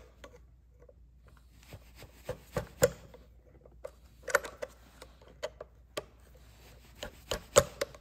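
A new E-clip being pushed onto the crankshaft of a Stihl MS 650 chainsaw's clutch with a screwdriver: irregular metal clicks, taps and scrapes as the tool slips and presses on the clip until it seats.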